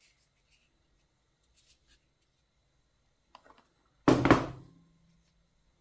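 Light rustles and taps of a cardboard box and its tray being handled. About four seconds in comes a sudden loud knock, a few strikes close together, with a short ringing tail.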